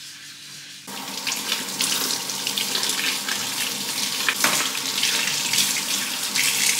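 Running water, starting suddenly about a second in and then going on as a steady rush.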